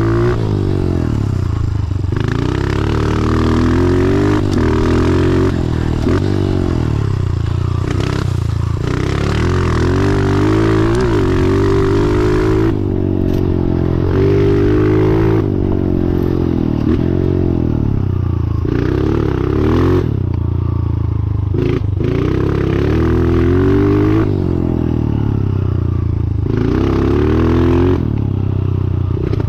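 2014 Honda CRF125F dirt bike's single-cylinder four-stroke engine, fitted with a full FMF exhaust, revving hard and dropping back again and again as it is ridden through the gears, with a few sharp knocks and rattles from the bike over the ground.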